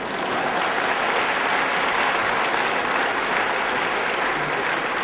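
Audience applauding, the clapping swelling up at the start and then holding steady.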